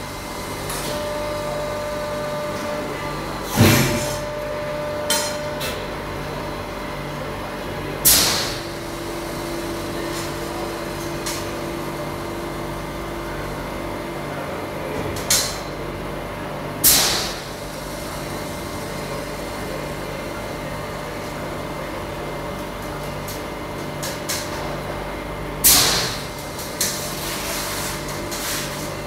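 Steady hum of workplace machinery, broken every few seconds by loud bangs, the biggest ones ringing out briefly.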